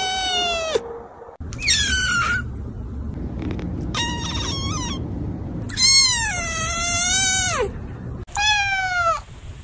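Kittens meowing: a long meow ending about a second in, then a falling meow, two short calls around four seconds in, a long drawn-out meow that drops in pitch at its end, and a last short falling meow near the end.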